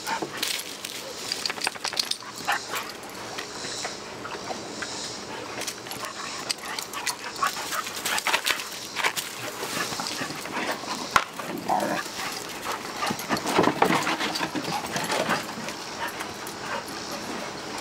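Puppies play-fighting: dog vocalizations mixed with many short scuffling sounds, busiest and loudest a little past two-thirds of the way through.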